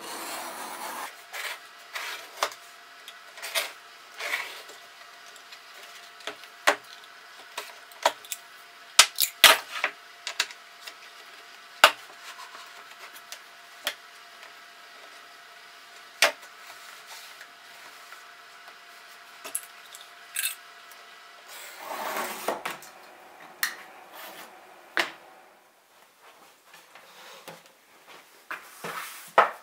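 Utility knife drawn through thick leather along a wooden straight-edge jig, with two longer scraping cuts, at the start and again after about twenty seconds, and many sharp clicks and knocks as the jig, knife and leather strips are handled on the cutting mat.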